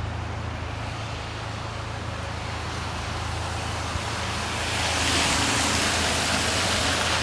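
Road traffic noise: a steady low rumble with a rushing hiss that swells louder about five seconds in.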